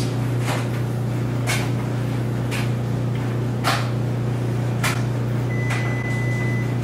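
Frigidaire stacked washer starting up after being restarted: a steady electric motor/pump hum with a sharp knock about once a second, and a faint high whine joining near the end. The load is a heavy, waterlogged blanket that the machine has been failing to spin because it reads as off balance.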